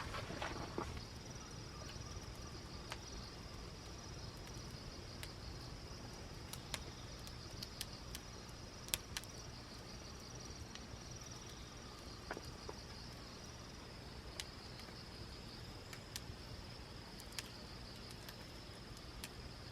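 Wood campfire crackling, with scattered sharp pops, the loudest about nine seconds in, over a steady high trill of insects. A brief rustle comes right at the start.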